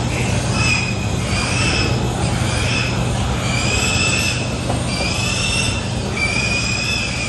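Pigs squealing over and over in long, high-pitched squeals that overlap one another, over a steady low hum.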